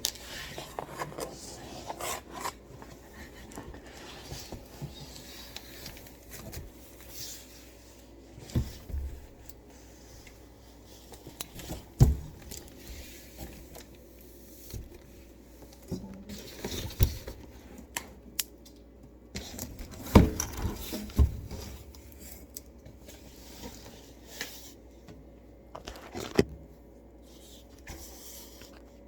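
Unboxing handling noises: scattered scrapes, rustles and clicks of a boxed portable party speaker and its packaging being moved about, with a few sharper knocks, the loudest about twelve and twenty seconds in.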